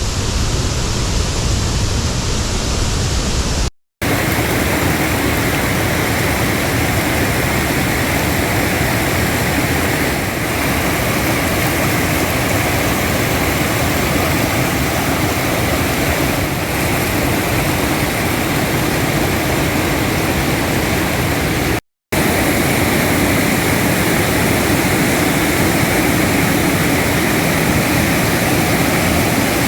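Loud, rushing river rapids: a steady wash of white water, cut off for a split second twice, about 4 seconds in and again near 22 seconds.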